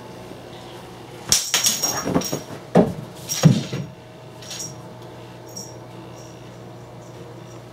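A flurry of scuffling and rustling, several quick bursts over about two and a half seconds: a kitten dashing after a thrown toy mouse on a wooden floor. It is quiet again after about four seconds in.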